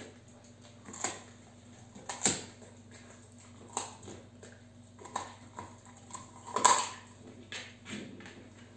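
Dog chewing a hard treat, with irregular sharp crunches and clicks about once a second; the loudest comes about two-thirds of the way through.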